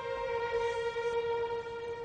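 Background music: a single long held note with its overtones, stepping slightly down in pitch at the start.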